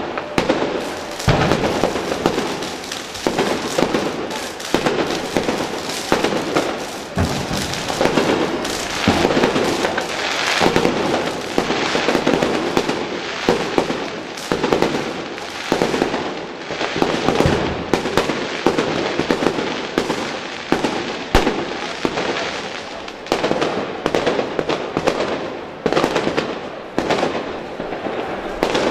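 New Year's fireworks going off without a break: a dense run of bangs and crackling from bursting aerial shells, with a few heavier, sharper reports standing out.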